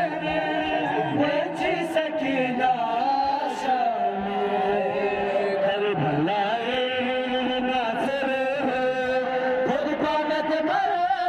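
A noha, a Shia Muharram lament, sung by a man into a microphone in long held, gliding notes, with the crowd of mourners chanting along. A few sharp slaps sound through it.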